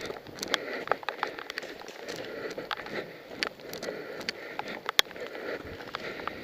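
Rustling and crackling of movement through forest undergrowth, with many small sharp clicks and one loud sharp crack about five seconds in.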